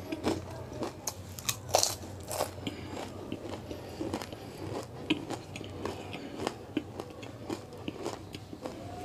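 Close-miked crunching and chewing of crisp fried samosa pastry: two loud crunches about two seconds in, then steady chewing with many small clicks.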